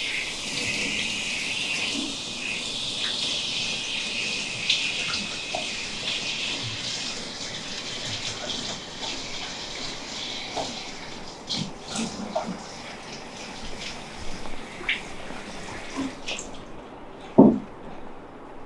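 Water running steadily from a tap or sprayer, starting suddenly and shutting off about sixteen seconds in, with light clicks throughout. A single loud thump near the end.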